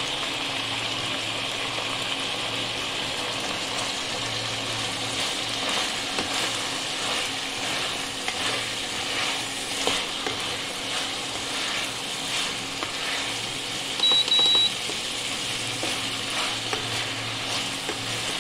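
Chicken pieces and sliced onions sizzling in hot oil in a wok, with spatula scrapes and knocks against the pan from about six seconds in. A short, high electronic beep sounds about fourteen seconds in and is the loudest thing.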